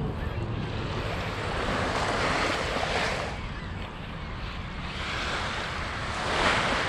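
Lake Michigan waves washing up on a sand beach, the hiss of surf swelling about two seconds in and again near the end. Wind rumbles on the microphone throughout.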